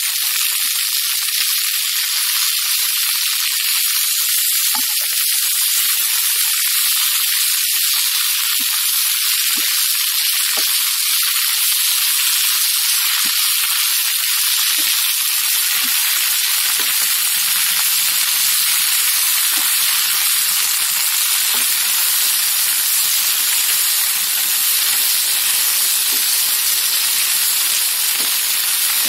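Sukkan keerai greens, small onions and garlic sizzling in oil in a nonstick pan as the leaves wilt, stirred with a wooden spatula: a steady hiss.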